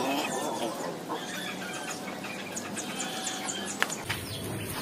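Farmyard poultry and small birds calling: many short, high chirps throughout, with a call of wavering pitch in the first half second and a couple of sharp clicks near the end.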